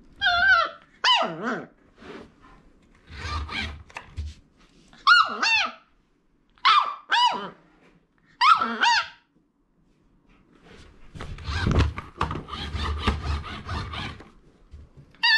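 Shiba Inu puppy giving short, high-pitched yips and whines in small clusters, some in quick pairs, while playing. Stretches of rough scuffling noise come in between, the longest near the end.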